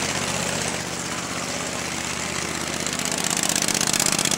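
Small gasoline engine of a large radio-controlled model tank running with a fast, even pulse, getting louder about three seconds in as the tank drives.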